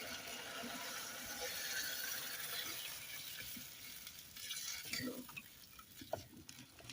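Water poured into a pot of freshly fried chicken and spice paste, a hiss that fades out after about three seconds; a few light knocks follow near the end.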